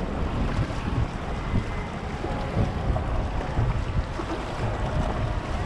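Wind buffeting the microphone over the rush of water around a racing dragon boat, a gusty low rumble with no steady beat.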